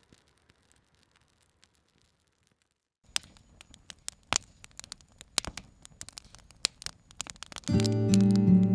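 Near silence, then after about three seconds a run of sharp, irregular pops and crackles like burning firewood. Music with sustained chords comes in loudly near the end.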